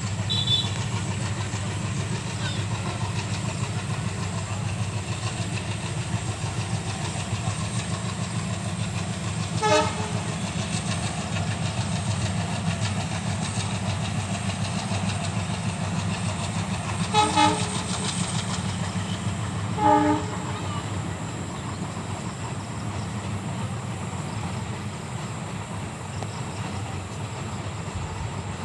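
Train rumbling steadily as it crosses a railway bridge. A few short horn toots sound over it: one about ten seconds in, two close together a little past the middle, and one more shortly after.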